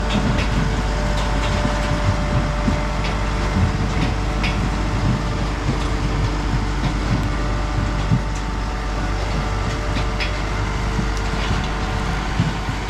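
Tractor-drawn pumpkin harvesting rig with its conveyor running steadily, a hum with a couple of steady tones. Scattered sharp knocks sound over it.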